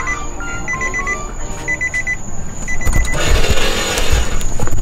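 Rapid electronic beeping in short groups of quick beeps, with a few stepped single tones between them. About three seconds in, a burst of rustling and low thumps comes in over it.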